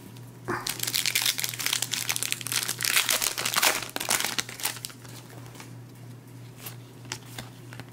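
Foil wrapper of a Panini Contenders basketball card pack crinkling as it is torn open, for about three and a half seconds. A few faint clicks follow.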